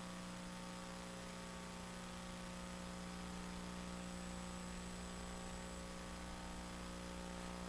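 Faint, steady electrical mains hum with a light hiss underneath.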